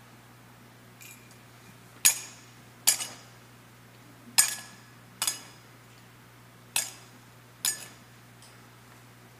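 Brass thurible swung on its chains, clinking sharply six times in three pairs: three double swings incensing the Gospel book. Each clink rings briefly.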